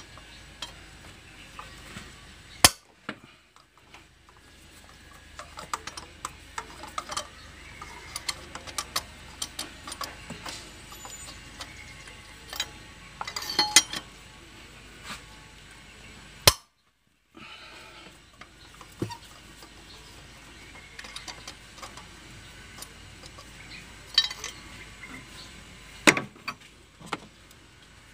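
Metal hand tools clicking and clinking as spark plugs are loosened and taken out with a 14 mm socket wrench: scattered sharp clicks at an irregular pace.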